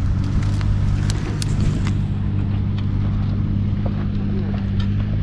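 A steady low motor hum with scattered sharp clicks over it.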